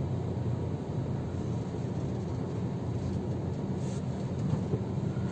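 A car's engine running at low revs as the car reverses slowly, heard from inside the cabin as a steady low rumble.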